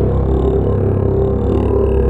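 Background music holding a steady low drone.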